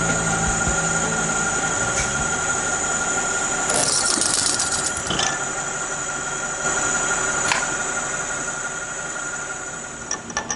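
Titanium-coated HSS drill bit cutting into steel plate on a milling machine, with a steady high-pitched squeal and a harsher scraping hiss about four seconds in. The bit is worn out after thousands of holes and is near the point of failure.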